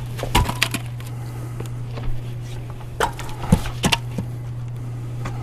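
A few sharp knocks of split firewood pieces being handled and clunking together as they are pulled off a woodpile, over a steady low hum.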